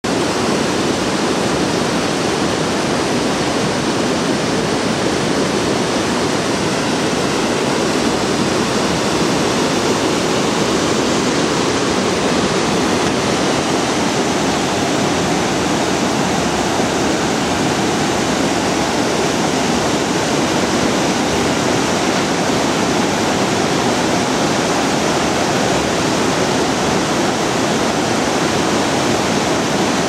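A waterfall's water cascading over rocks and boulders: a steady, loud rush of falling water that never changes.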